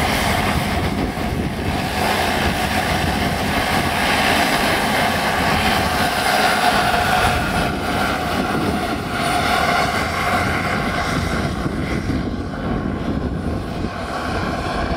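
Radio-controlled scale model helicopters in flight: the steady whine of the model's engine and rotors, continuous, with its pitch shifting slightly as the model moves.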